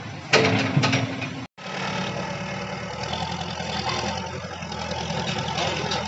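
A crash of breaking masonry and falling debris for about a second, then, after a short gap, a backhoe loader's diesel engine running steadily.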